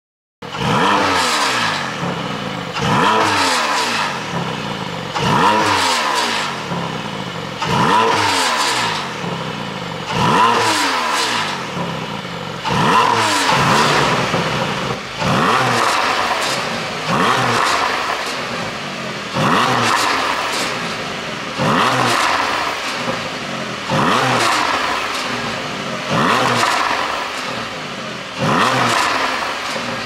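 Porsche 718 Boxster GTS 4.0's flat-six exhaust blipped from idle over and over, about every two seconds, each rev rising and then falling away. The ECU is tuned to make the exhaust pop and crackle as the revs drop.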